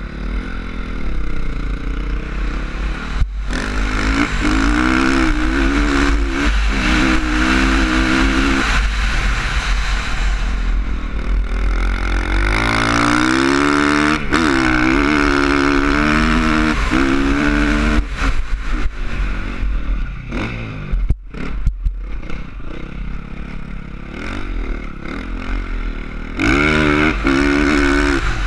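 Dirt bike engine revving up and down repeatedly as the throttle is opened and closed, its pitch climbing and falling, with a steady low wind rumble on the helmet-mounted microphone.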